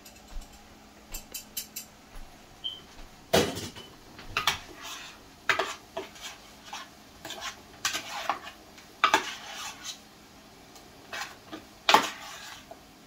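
A spoon clinking and scraping against a ceramic bowl as flour is mixed into seasoned fish pieces, in irregular strokes, with the loudest knocks about three seconds in and near the end.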